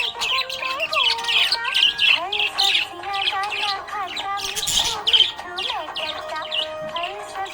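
Budgies chirping and warbling in quick, dense runs, over a song with a sung melody.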